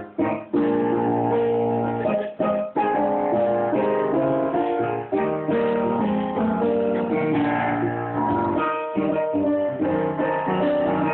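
Music: a men's vocal ensemble singing held chords with guitar accompaniment.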